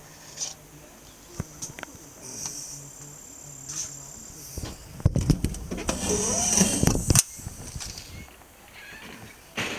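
Movement and handling noises of someone carrying a metal bowl out through a doorway and walking. Scattered clicks and knocks come first, then a louder stretch of rustling and knocking for about two and a half seconds around the middle.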